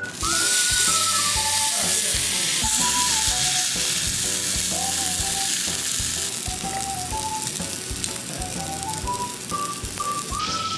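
Food sizzling loudly on a hot surface, cutting in suddenly at the start, with a light background music tune over it.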